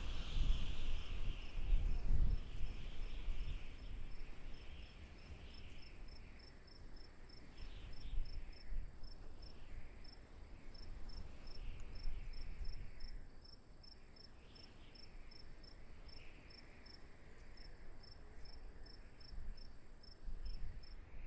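Crickets chirping in an even rhythm, about two or three chirps a second, over a continuous high, thin insect trill. A low rumble underneath is strongest in the first few seconds.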